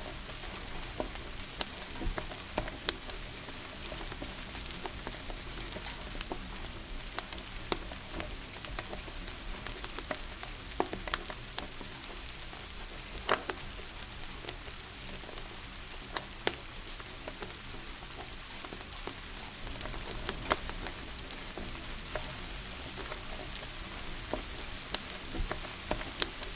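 Steady rain hiss mixed with a crackling wood fire, whose sharp pops come at irregular moments, often more than one a second.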